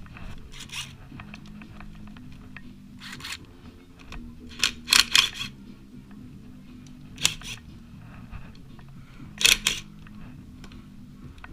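Short rasps and clicks of hand tools and steel bolts being handled while a motorcycle engine's clutch cover is unbolted: about five brief bursts, the loudest a quick cluster around five seconds in. A steady low hum runs underneath.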